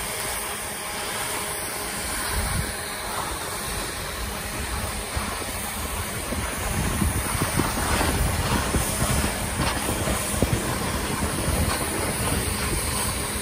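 Steady hissing rush of snowmaking guns blasting, mixed with the scrape of skis running over packed snow. It grows louder and rougher about halfway through.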